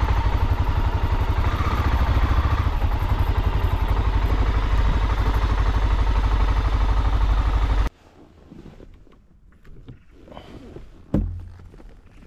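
Motorcycle engine running steadily with a rapid even pulse, close to the microphone; it cuts off suddenly about eight seconds in. Faint handling sounds follow, with a single thump about eleven seconds in.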